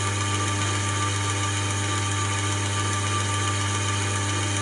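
Inverter-driven electric gearmotor of a mixing machine running steadily after the mixing program starts: a constant low hum with a faint steady whine and hiss above it.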